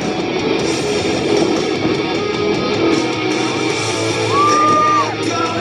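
Rock music with guitar; a held high note bends down near the end.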